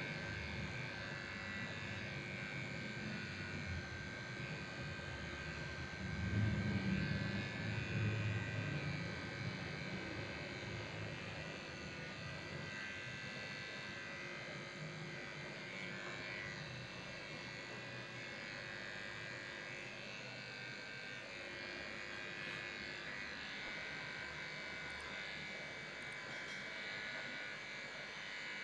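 Electric dog grooming clippers running with a steady buzzing hum, louder and lower for a few seconds about six seconds in.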